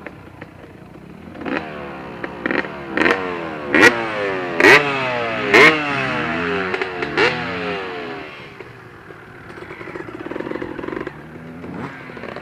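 Dirt bike engine revving hard, its pitch climbing again and again with a sharp crack between climbs as it accelerates through the gears, then dying away about eight seconds in. A quieter engine drones a little later.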